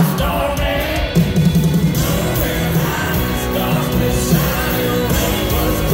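Live country band playing loud through an arena sound system, with singing over it, heard from among the audience.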